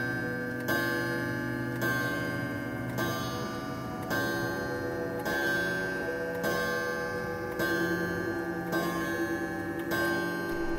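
Clock bell striking midnight: nine even strikes about a second apart, each ringing on into the next.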